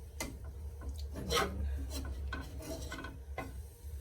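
Kitchen handling sounds: a utensil scraping and knocking against a dish in a few short scrapes and clicks, over a steady low hum.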